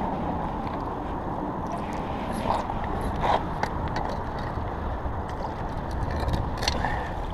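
A steady low outdoor rumble, with a few light knocks and scrapes, two of them more distinct about two and a half and three and a half seconds in, as a hooked sheepshead is worked into a landing net against a concrete seawall.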